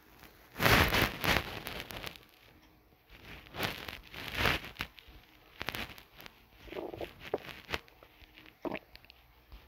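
Irregular rustles and light taps, with the loudest rustle about a second in and scattered clicks after.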